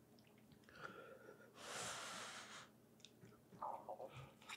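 A person's breathing while eating, with one long breathy rush about a second and a half in, followed by faint small mouth and eating clicks.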